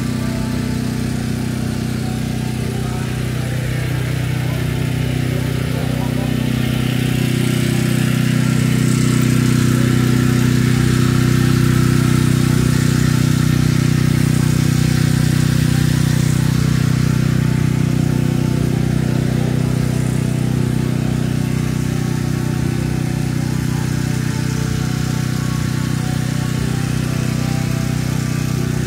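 A motor running steadily at a constant speed, a low even hum with no change in pitch.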